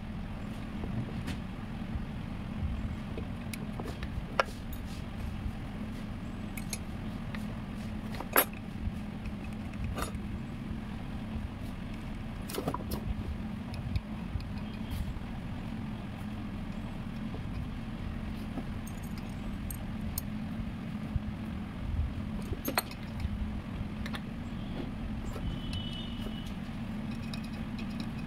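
Scattered sharp clicks and clinks, a few seconds apart, of hand tools and engine parts being handled while a scooter's cylinder head and rocker arms are fitted, over a steady low background hum.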